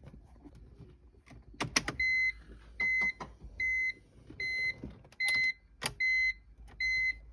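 A 2002 BMW E46's electronic warning chime beeps repeatedly, one short high beep about every 0.8 s, starting about two seconds in. It is mixed with a few sharp clicks and knocks from the convertible-top motor. The engine does not crank.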